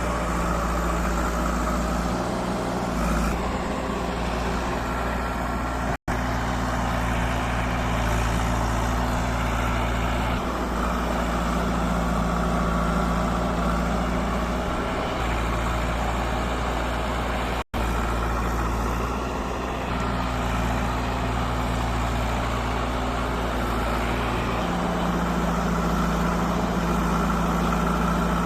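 Diesel engine of a JCB 3DX backhoe loader running steadily under work, its pitch shifting a little now and then. The sound cuts out abruptly for an instant twice, about six and eighteen seconds in.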